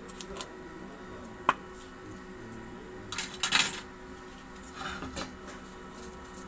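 Small metal pump parts and tools clinking against steel trays and the pump housing. There is a sharp click about a second and a half in, a loud rattle of clinks a little past halfway, and a few softer clinks near the end.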